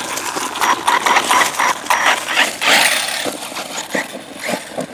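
Brushless electric RC monster buggy (Arrma Typhon 6S BLX) driving off across grass and dry leaves: the motor and drivetrain whine while the tyres churn up dirt and leaves with irregular crackles and clicks, fading as it gets further away.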